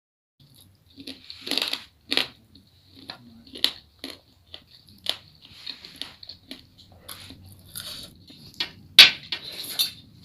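Close-miked eating: a person chewing and crunching food, with irregular sharp mouth clicks and smacks. The loudest crunch comes about nine seconds in.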